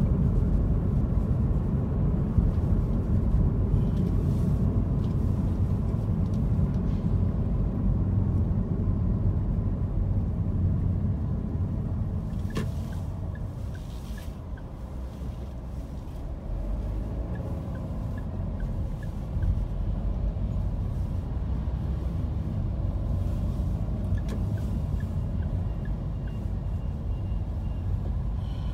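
Steady low rumble of a car driving in city traffic, heard from inside the car, easing off slightly partway through. One sharp click sounds about twelve seconds in.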